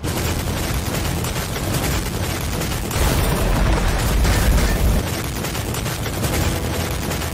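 Animated fight sound effects: a dense run of rapid impacts and blasts over a low rumble, loudest from about three to five seconds in.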